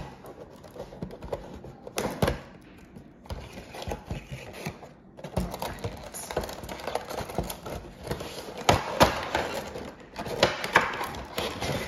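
Cardboard Funko Pop box and its clear plastic insert being handled and opened: an irregular run of crackles, clicks and knocks, loudest about nine seconds in.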